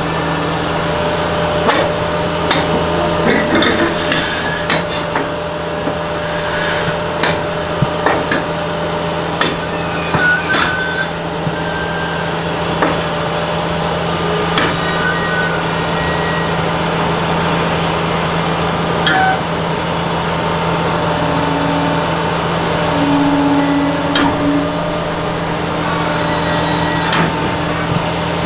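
Liebherr R954 crawler excavator's diesel engine running steadily while its steel tracks clank and knock as it creeps up onto a low-loader trailer, with a few short squeals among the knocks.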